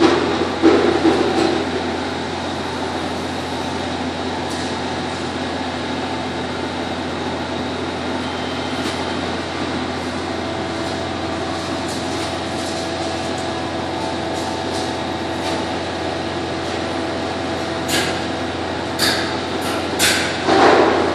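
Steady mechanical hum of workshop background noise, with handling noise early on and a few sharp light clicks near the end as small brass valve parts are handled and set down.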